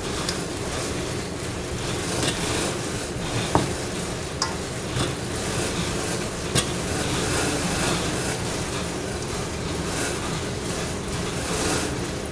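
Ground beef mixture being kneaded by hand in plastic gloves in a stainless steel bowl: steady squishing and rustling, with a few sharp clicks in the middle, over a steady low hum.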